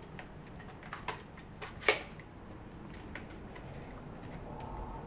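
Plastic clicks and knocks of a Vivitar BG-E8 battery grip being fitted into a Canon T5i's battery compartment: a few scattered clicks, with one sharp click about two seconds in.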